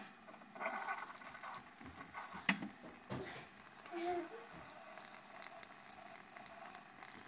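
Keurig single-cup coffee maker brewing, its stream of hot coffee pouring straight onto an open paper journal page: a faint, uneven hiss with scattered small clicks.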